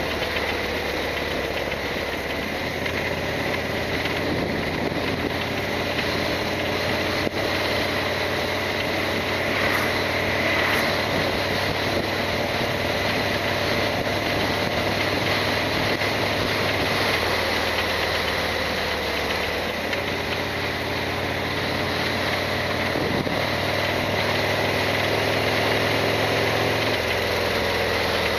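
Harley-Davidson Sportster 1200's air-cooled V-twin engine running steadily, its pitch shifting slightly in the later part.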